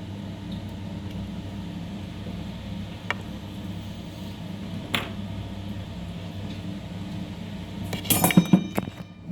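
Steady low hum of a workshop machine, with a sharp click about three seconds in and another about five seconds in. Near the end comes a quick flurry of ringing metallic clinks, like small metal tools or parts knocking together.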